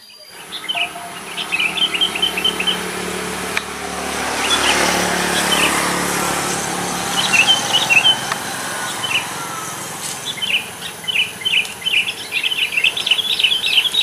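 Sooty-headed bulbuls (kutilang) calling in quick runs of short chirps, thickest near the end. A broad rushing noise swells and fades in the middle.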